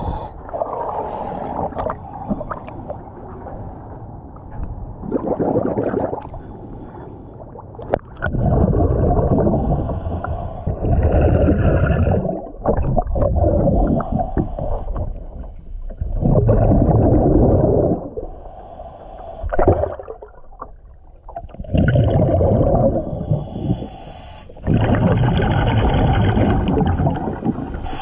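A diver's breathing regulator heard underwater: loud bubbling exhalations, each a second or two long, every few seconds, with quieter stretches between.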